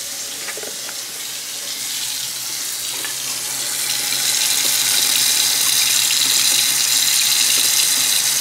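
Kitchen tap running hot water in a steady stream, the flow growing louder about four seconds in.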